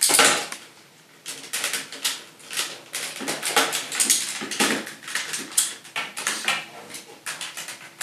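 Hard plastic toy parts clicking, knocking and scraping in quick irregular bursts as the Condor Phone attachment is worked onto the rail of the Gan Gun Saber toy blaster.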